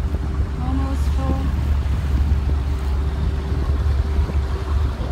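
Motorboat engine running steadily under way, mixed with wind on the microphone and water noise; a voice speaks briefly about a second in.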